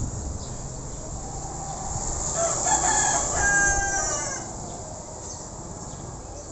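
A rooster crows once, a call of about two seconds starting a little after two seconds in, over a steady high drone of insects.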